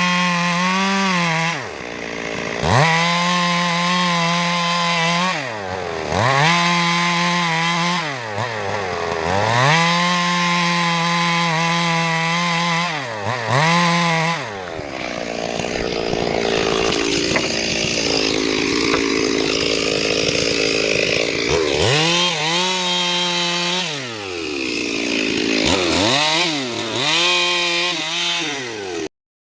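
Stihl MS 382 two-stroke chainsaw running at high revs and cutting wood, its engine speed dropping sharply and climbing back again every few seconds. For several seconds around the middle the engine note turns rough and noisy as the chain works through the wood, then the rise-and-fall revving returns.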